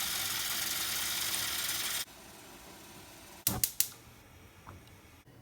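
Tap water running into a pot, a steady hiss that stops abruptly about two seconds in. About a second and a half later come three sharp clicks in quick succession.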